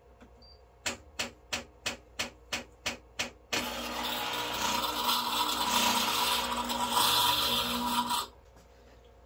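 Philips EP2221 automatic espresso machine filling and priming its empty water circuit, the sound a new machine makes on first use: a row of evenly spaced clicks, about three a second, then the water pump running loudly for about five seconds before stopping abruptly.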